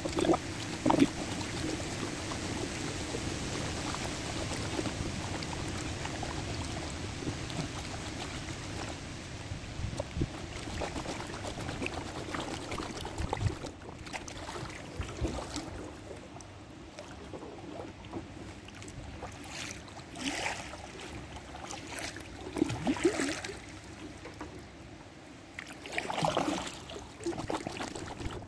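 Kayak paddling: water swishing and trickling off the paddle blades. A steady rushing noise fills the first half, then separate splashes come every few seconds.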